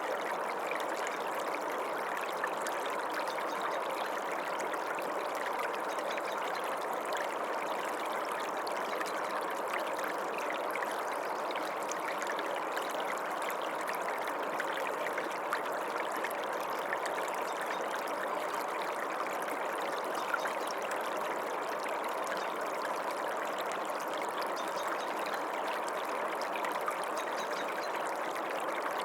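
Creek water running, a steady, even rush and trickle with no breaks.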